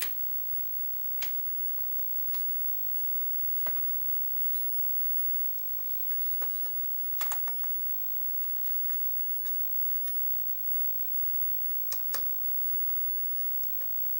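Sparse, irregular small clicks and taps of laptop parts being handled as internal cable connectors are plugged in and pressed into place, the sharpest double clicks about seven and twelve seconds in.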